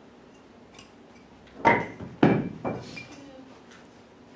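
Three sharp knocks in quick succession about halfway through, the first two with a brief ring, among faint clinks.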